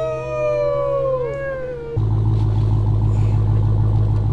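A high whine that falls slowly in pitch for about two seconds, then the Dodge Challenger SRT Hellcat Redeye's supercharged 6.2-litre Hemi V8 idling steadily, heard close to its exhaust tips.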